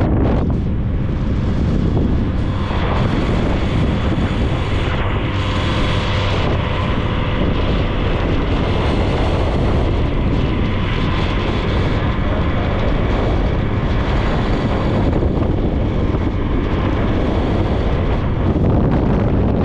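Steady rush of wind on the microphone over the drone of a motorbike engine and tyres at cruising speed, with no change in pace.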